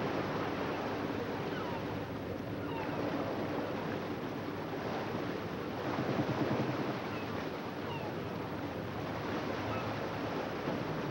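Open sea washing and rushing around a fishing boat, a steady wash that swells a little about six seconds in, over a faint steady low hum. A few faint, short, high chirps come and go on top.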